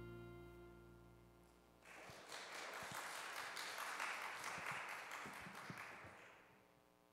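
The final held chord of the song dies away, then a few people clap for about four seconds before the clapping fades out.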